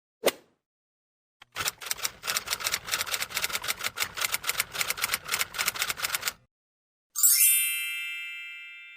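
Typewriter sound effect: a single knock, then a long run of rapid keystrokes, then a bell dings once and rings away slowly, like a typewriter's end-of-line bell.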